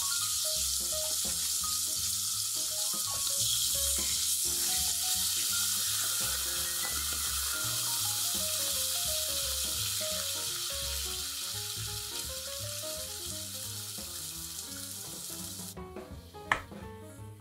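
Fish fillets sizzling and bubbling in a frying pan as they simmer in clam broth: a steady hiss that cuts off abruptly near the end, followed by a few sharp clicks.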